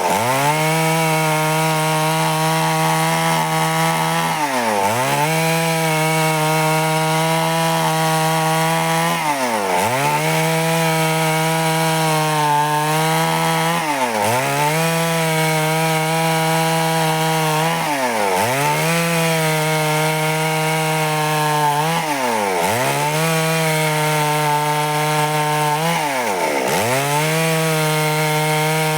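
Stihl two-stroke chainsaw running at high revs, cutting wood. The engine speed dips sharply and recovers about every four to five seconds.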